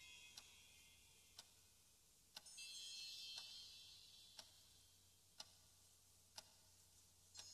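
Faint, regular ticking, one tick a second, with a cluster of high, sustained ringing tones that swells about two and a half seconds in and fades over the next two seconds.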